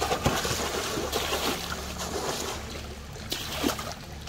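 Pond water splashing and dripping as a wet cast net is hauled up out of the water, with irregular surges of splashing as a large fish thrashes in the net near the end.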